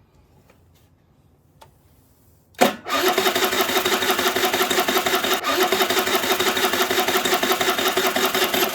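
Daelim a-FOUR 50 scooter's small engine starting with a sudden burst about two and a half seconds in, then running at a steady fast idle until it cuts off abruptly.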